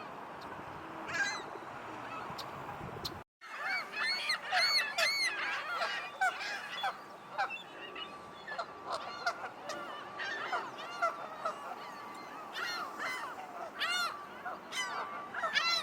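A flock of birds calling over one another: a dense, busy chorus of short, overlapping calls. The sound drops out for a moment about three seconds in, then the chorus picks up again, louder.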